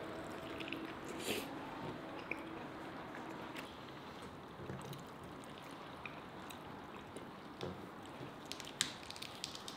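A person eating spit-roasted chicken by hand, chewing and pulling the meat apart, with soft squishes and scattered small clicks.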